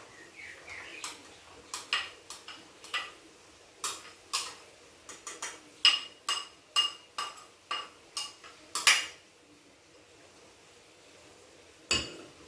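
A metal utensil clinking and tapping against a mixing bowl as chopped ingredients are scraped in. The clinks are sharp, ringing and irregular, a couple of dozen of them between about one and nine seconds in, with a single knock near the end.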